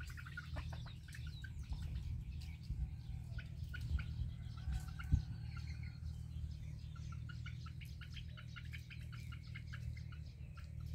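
Hens giving alarm clucks, runs of short sharp notes repeated several times a second: the call hens make on seeing a snake, here a rat snake. A steady low rumble lies underneath.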